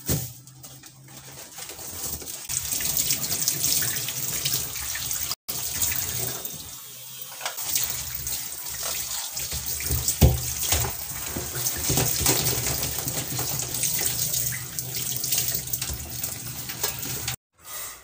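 Tap water running steadily into a stainless-steel kitchen sink while hands rinse seafood under the stream, with one louder knock near the middle.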